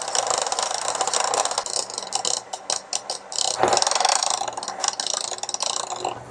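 Electric hand mixer running, its twin beaters whipping cream and cream cheese into a mousse in a bowl, with rapid clicking and rattling as the beaters knock around the bowl.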